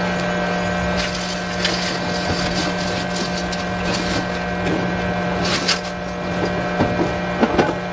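Steady electrical machine hum with scattered crackles and sharp clicks, clustered a little after the start, around the middle and near the end.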